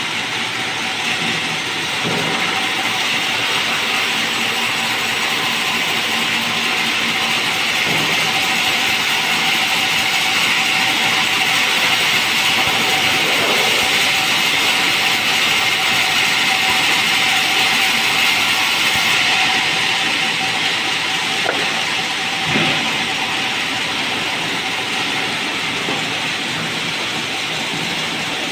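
Band saw mill ripping a merbau hardwood plank: a steady hiss of the blade cutting through the wood over a constant whine, with a couple of brief knocks.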